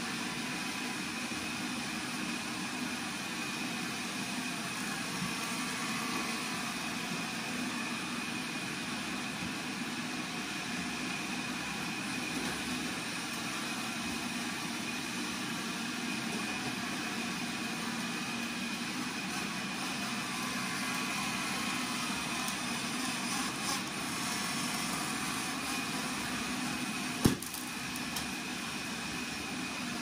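Dozens of robot vacuum cleaners running at once: a steady mechanical whir of many small motors and brushes, with a faint high whine. A single sharp bang stands out near the end.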